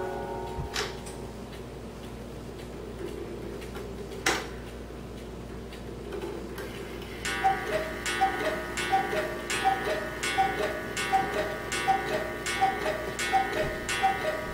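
Carved German cuckoo clock ticking, with the last notes of its music box tune fading out and two clicks from the works. About seven seconds in, the cuckoo starts calling the hour: two-note cuckoo calls, about one every 0.7 seconds, on through the end.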